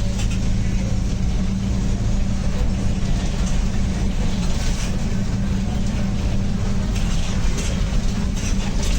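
Mercedes-Benz OF-1722M bus under way: steady diesel drone with its differential droning, and scattered brief rattles throughout.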